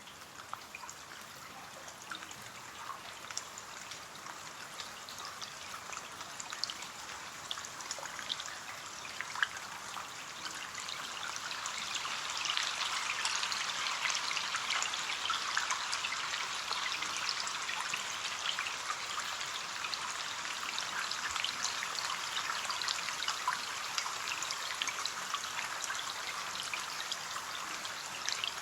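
Rain falling on a window pane: a steady hiss full of tiny separate drop ticks, growing louder over the first half and then holding steady.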